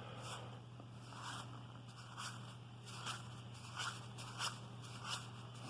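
Baseball cards being slid off a pack stack one at a time, a soft scraping rustle of card on card roughly once a second.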